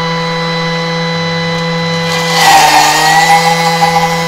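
Thermomix food processor motor running at speed 10 with a steady high whine. About two seconds in, the pitch dips briefly under a louder chopping rattle as fresh coriander drops onto the spinning blades and is chopped.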